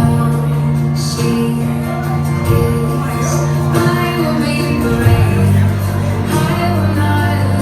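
Loud music with singing over a sustained bass line; the bass note changes about five seconds in.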